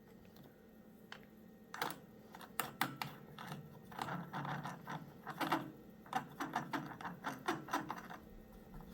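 Irregular sharp clicks and light knocks from hand work on a small mower engine: parts and tools being handled, starting about two seconds in and going on in quick runs until near the end.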